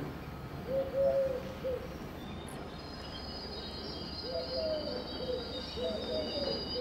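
A pigeon cooing in repeated groups of short low notes, once about a second in and again several times from about four seconds on, over the steady low rumble of an approaching Class 66 diesel locomotive's two-stroke V12 engine. A faint high steady whine joins about three seconds in.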